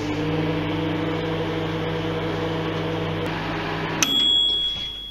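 Microwave oven running with a steady hum, then shutting off with a click about four seconds in and giving a long high beep as the heating cycle ends, cooking a poached egg in a cup of water.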